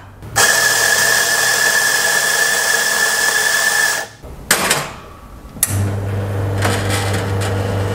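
Electric coffee grinder running for about three and a half seconds with a steady whine, grinding espresso into a portafilter. A short knock and a click follow, then the espresso machine's pump starts a low, steady hum as the shot begins to brew.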